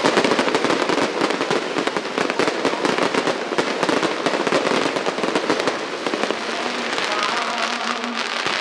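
Fireworks show: dense, rapid crackling and popping from many shells bursting at once, thinning slightly in the last couple of seconds.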